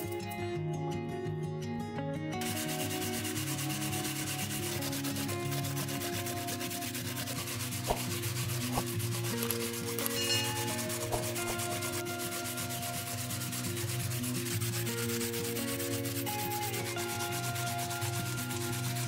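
Apples grated by hand on the coarse side of a stainless steel box grater: a continuous wet rasping that starts about two seconds in, with a few light knocks of the grater or apple on the wooden board. Soft background music plays underneath.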